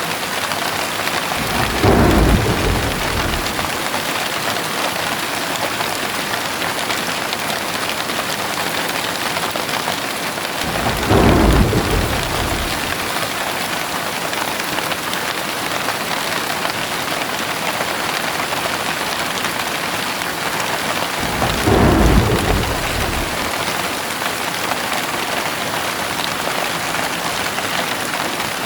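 Steady rain with three short rolls of thunder about ten seconds apart, each lasting a second or two.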